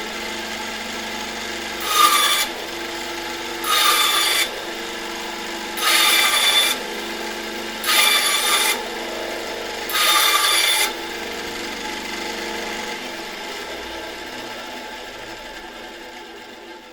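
Band saw running steadily, cutting into wood five times in short passes about two seconds apart. Each cut is a brief, harsh rasp over the motor's hum. After the last cut the saw runs on alone, fading slowly near the end as it winds down.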